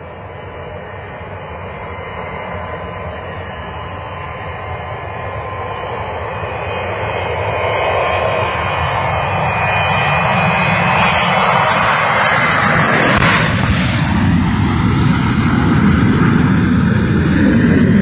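Boeing 727 cargo jet's three rear-mounted turbofans at takeoff power, growing steadily louder as the plane rolls down the runway toward the listener. About two-thirds of the way in, the noise peaks as the jet goes by, then the engine tone falls in pitch.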